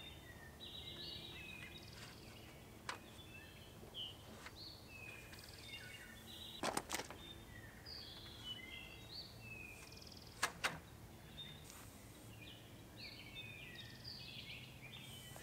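Birds chirping in the background, with a few sharp metal clicks and knocks as the awning's metal support leg and hardware are handled. The loudest clicks come in quick pairs about halfway through and again about two-thirds of the way in.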